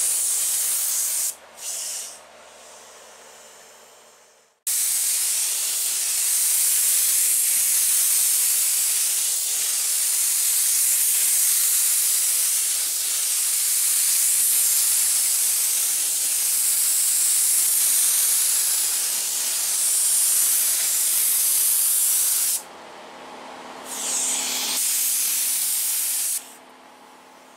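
Compressed-air gravity-feed spray gun spraying primer: a loud, steady hiss of air and atomised paint in trigger pulls. There is one long pull of about eighteen seconds, with shorter pulls and brief breaks before and after it.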